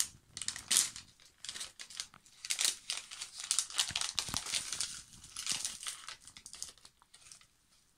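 A plastic grilled-seaweed snack packet being torn open by hand: a run of irregular crinkling and crackling that dies away near the end.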